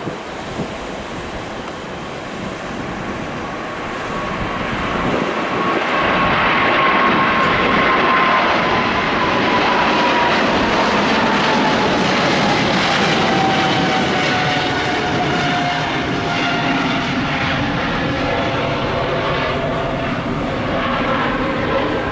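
Boeing 777-300ER's GE90 jet engines as the airliner passes: the engine noise swells about four seconds in and stays loud, with a whine that slowly falls in pitch as it goes by.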